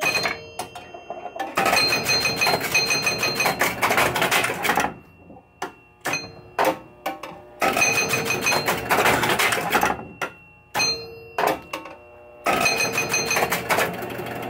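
1976 Williams Grand Prix electromechanical pinball machine clattering as it runs. There are three runs of rapid mechanical clicking, each lasting a few seconds, with single clicks between them and faint ringing tones mixed in.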